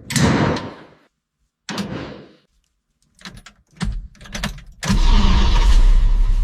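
Dubbed mechanical sound effects: two short noisy bursts, a quick run of clicks, then a steady motor-like whir with a low hum that cuts off abruptly.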